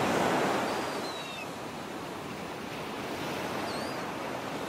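Sea surf washing on a beach, a steady rushing noise that swells in the first second and then settles. A few faint, short, high chirps sound over it.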